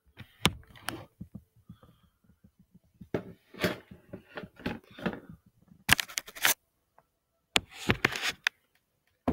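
Handling noise from a camera being moved and set back in place: a string of knocks, clicks and rustling, with two louder scraping bursts about six and eight seconds in.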